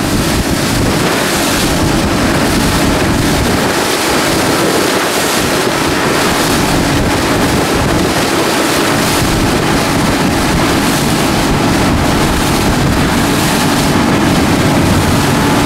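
Speedboat under way: a steady engine hum mixed with wind buffeting the microphone and water rushing past the hull.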